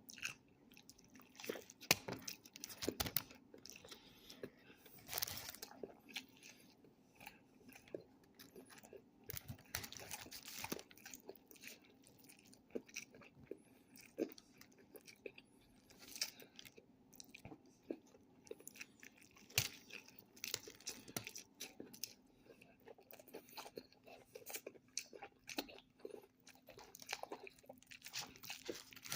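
Close-up chewing and biting into a Whataburger hamburger: irregular wet mouth sounds with short crunches.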